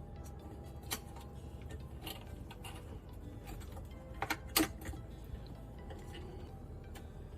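Scattered light clicks and ticks, with a sharper pair of clicks about four and a half seconds in.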